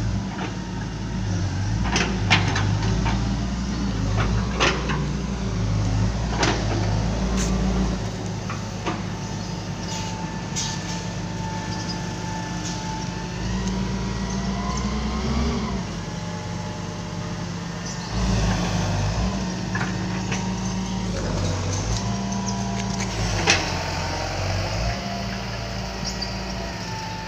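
Hitachi EX90 wheel excavator's diesel engine running as the machine is worked, its note dropping about eight seconds in and picking up again near eighteen seconds as the load changes. A thin whine shifts in pitch over the engine, with occasional sharp clanks from the machine.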